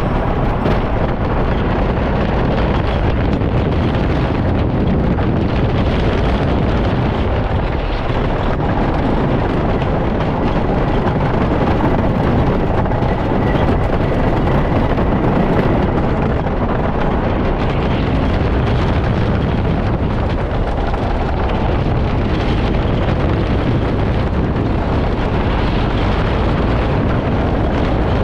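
A Philadelphia Toboggan Coasters wooden roller coaster train running at speed over its wooden track, with a steady, heavy rumble and wind rushing over the microphone.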